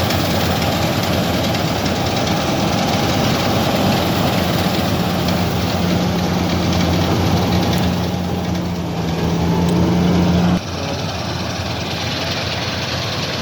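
Combine harvester's engine running steadily. A steady low hum joins it about four seconds in and cuts off suddenly about ten and a half seconds in, and the overall sound drops a little.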